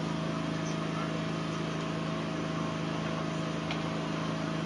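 Tsunami floodwater surging through a town: a steady rushing noise with a constant hum running under it.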